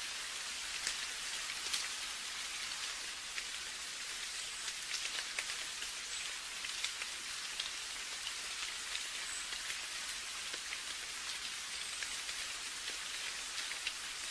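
Steady rain: a continuous even hiss with many individual drops ticking through it.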